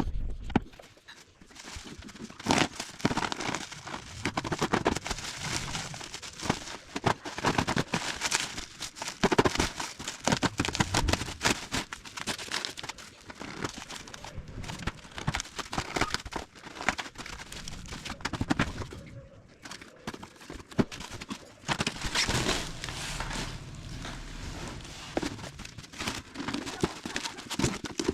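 Packaging being handled and opened: irregular rustling and crinkling with frequent light knocks and clicks.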